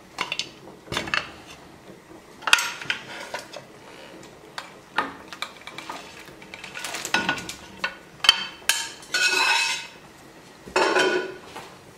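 A metal cooking pot knocking, clinking and scraping against the rim of a large glazed clay cazuela as pork and broth are emptied into it. The clatter comes in irregular hits, with two longer scraping or pouring stretches near the end.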